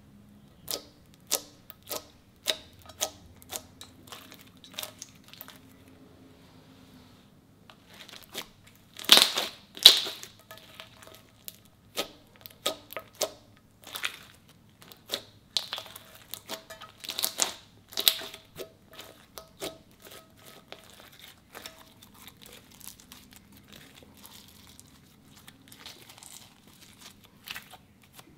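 Clear glitter slime being poked, pressed and stretched by hand, giving a string of sharp little clicks, crackles and pops as it is worked. The loudest crackles come in two clusters, about a third and about two-thirds of the way through.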